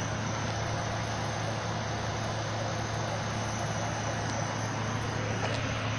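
A steady mechanical hum: a constant low drone under an even hiss that does not change.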